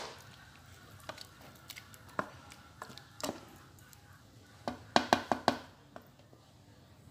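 Metal spoon stirring chopped tomatoes in an aluminium cooking pot, knocking and scraping against the pot now and then, with a quick run of about five louder knocks a little past the middle.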